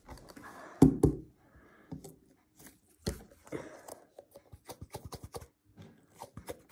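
Hand squeezing and handling an orange squishy stress ball on a table: a run of small crackling, crunching clicks, with louder knocks about one second and three seconds in.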